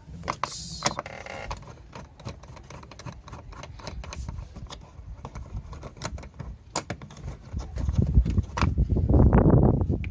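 Hand work on a car's interior trim: tools and plastic panel parts clicking and knocking irregularly, with a louder scraping rumble near the end.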